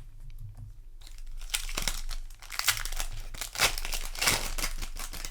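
Plastic foil booster pack wrapper crinkling and being torn open by hand, a dense crackle that starts about a second in, with a few sharper rips.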